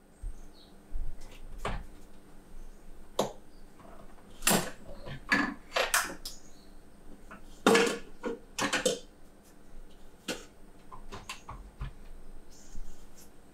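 Kitchenware being handled at a cupboard shelf: a series of separate clinks and knocks of utensils, containers and cupboard door, loudest near the middle.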